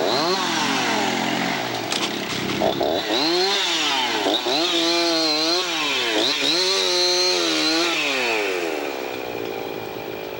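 Chainsaw revving up and down, its pitch rising and falling several times in quick succession as crews cut up trees brought down by the storm, then easing off near the end.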